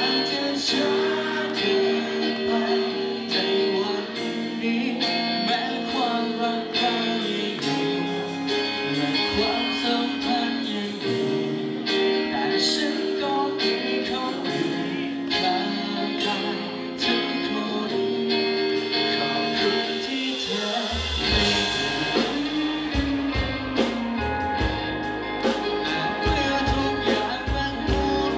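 Male singer performing a Thai pop song live through a microphone over backing music with guitar and a steady beat; a deeper bass line comes in about two-thirds of the way through.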